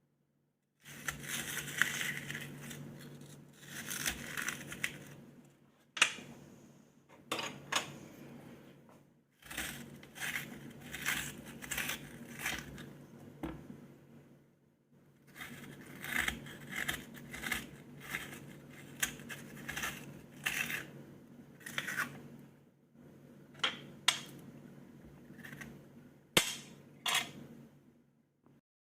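Onion being cut with a knife: irregular crisp crunching strokes with several sharp clicks, over a steady low hum.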